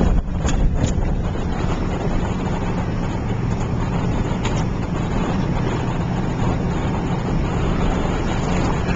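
A vehicle driving on a rough dirt road, heard from inside the cab: a steady engine and tyre rumble, with a few light knocks and rattles near the start and again about halfway through.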